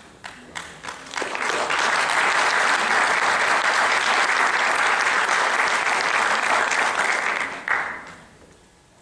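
Audience applauding. A few scattered claps swell into dense applause about a second in, which dies away near the end.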